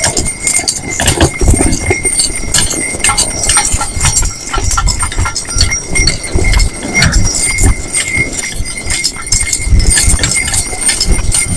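Hooves of a team of two horses on a snow-packed road, a constant quick clatter of hoofbeats with a dense rattle of clicks and knocks from the moving rig.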